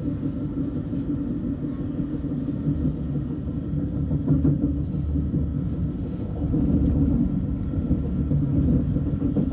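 KTX-Sancheon high-speed train running, heard inside the passenger car as a steady low rumble.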